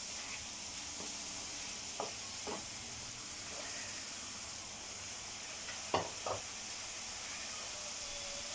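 Masala and potato pieces sizzling in oil in a kadai, with a steady hiss, while a wooden spatula stirs them; the spatula knocks against the pan a few times, twice sharply about six seconds in.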